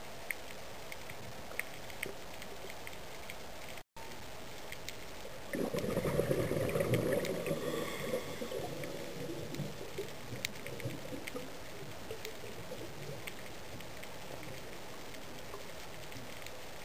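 Underwater sound on a reef: a steady hiss with scattered sharp clicks, cut by a brief dropout just before four seconds in. About five seconds in comes a rush of gurgling bubbles, which fades away over the next few seconds.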